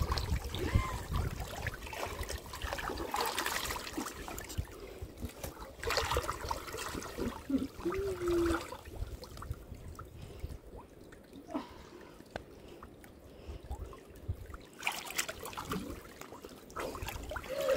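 River water sloshing, trickling and splashing around people wading chest-deep and reaching under the water along the bank, uneven and louder in the first few seconds and again near the end.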